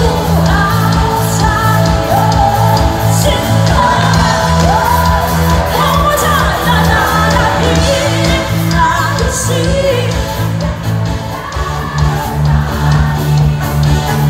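Live band playing loud amplified pop-rock, with female voices singing over electric guitar, bass, drums and keyboards, heard in a large hall.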